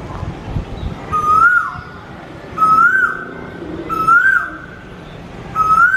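A bird calling over and over: a clear whistled note that rises and then drops, four times about a second and a half apart.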